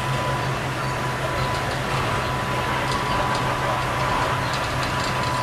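Train noise as freight wagons move close past: a steady low engine drone, a constant high whine and a few faint clicks.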